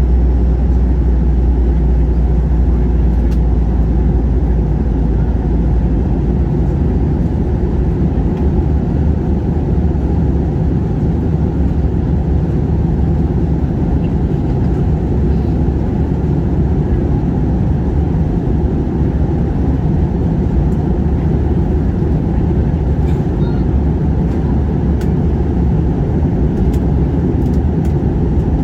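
Passenger airliner cabin noise: a steady, loud low rumble and rush of air heard from inside the cabin.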